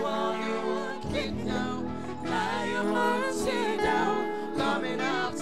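Live gospel praise singing: a woman's lead voice with backing singers, over instrumental accompaniment of sustained chords and a bass line.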